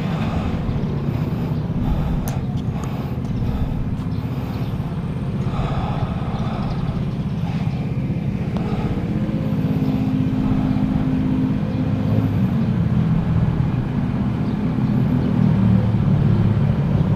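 Ducati motorcycle engine running steadily, with a low, even drone.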